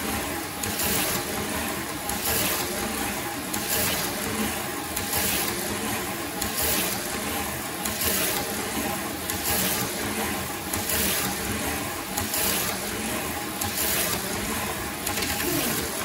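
Electric slot cars running on a plastic slot-car track, their small motors whirring. The sound swells evenly about every one and a half seconds as a car passes close on each lap.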